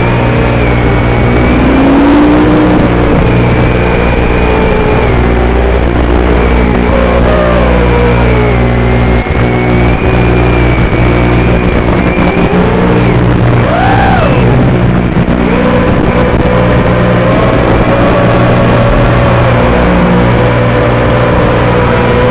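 Loud, constant buzzing interference noise on the audio channel of a 5.8 GHz FPV video link, with whining tones that waver up and down and one that swoops up and back down about two-thirds of the way through. The noise comes from the video transmitter sending mono audio to a Fatshark Nexwave receiver module that expects stereo.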